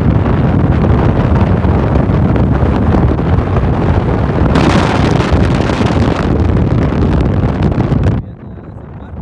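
Heavy wind buffeting the microphone, a loud rumbling rush that gets brighter for a couple of seconds midway and drops off suddenly near the end.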